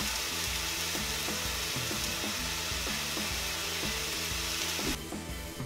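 Aubergine and red pepper slices sizzling in a covered frying pan, a steady frying hiss that stops abruptly about five seconds in. Background music plays underneath.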